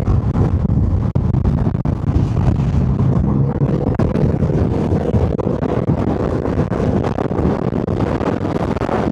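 A 2025 Triumph Rocket 3 R Storm's 2.5-litre inline-three engine and stock exhaust running steadily at highway cruising speed, around 105 km/h. Heavy wind rush on the microphone runs throughout.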